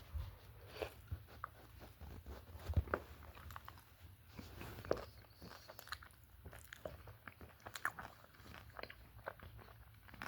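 A person eating frozen taquitos close to the microphone: soft, irregular biting, chewing and crunching, the loudest bites a little under three seconds and about five seconds in.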